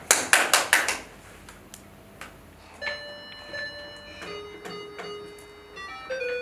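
Hand claps, about six quick ones in the first second. Then, from about three seconds in, a toy electronic keyboard plays a slow run of single beeping notes that step up and down in pitch.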